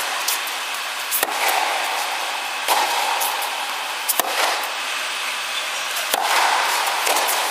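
Tennis ball being struck by rackets and bouncing on an indoor hard court: sharp pops every one to two seconds over a steady hiss.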